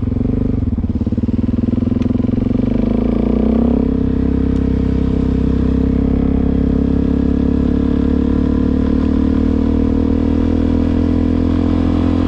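Suzuki DR-Z400's single-cylinder four-stroke engine running as the motorcycle rides along. Its pitch rises a little about three and a half seconds in, then holds steady.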